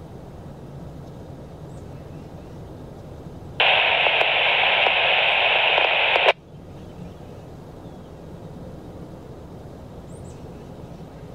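Radio static: a hiss of about two and a half seconds that switches on abruptly and cuts off just as suddenly, like a scanner breaking squelch with no voice on it, over a faint low rumble.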